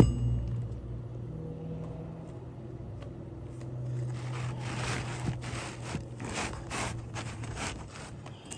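Scraping and tearing strokes as a 3-tab asphalt shingle is worked loose from its sealed course, coming in a quick run in the second half, over a steady low hum.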